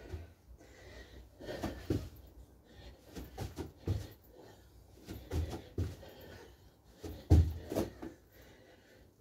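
Feet thudding on the floor during jumping jacks, kick-outs into a plank and squats, in irregular landings with the loudest thud about seven seconds in, along with hard breathing from the exertion.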